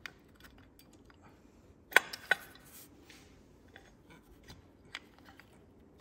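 Metal clicks and clinks from a clutch fork with its throwout bearing being pressed by hand onto its pivot in a Porsche Boxster 986 transmission bellhousing as it resists seating. Two sharp clicks come about two seconds in, a quarter second apart and the loudest, with a lighter click near the end.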